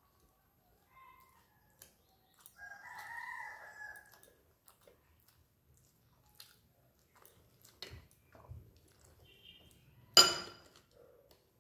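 A rooster crows once in the background about two and a half seconds in. Soft clicks of a hand mixing rice on a steel plate and chewing run through, and near the end a sharp clink with a short metallic ring stands out as the loudest sound.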